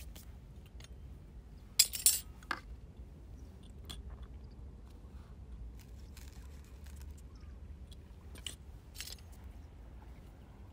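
Small glass seasoning jar being handled, with a cluster of sharp clinks about two seconds in, then scattered small ticks and crunchy rustles as pinches of salt and pepper seasoning are taken and sprinkled. A low steady rumble runs underneath.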